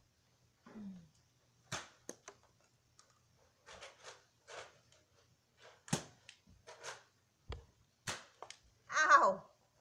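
Nerf foam-dart blaster being handled and fired: a string of short clicks, puffs and thumps, with a louder burst near the end that wavers in pitch.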